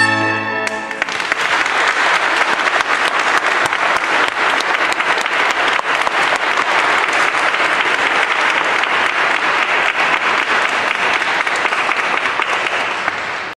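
A bombarde and pipe organ end their final held note within the first second, then an audience applauds steadily. The clapping cuts off suddenly at the end.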